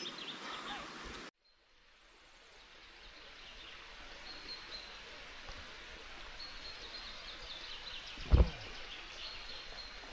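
Outdoor woodland ambience: a steady background hiss with high, short bird chirps coming and going. About a second in the sound cuts out suddenly and then fades back in, and a single dull thump stands out near the end.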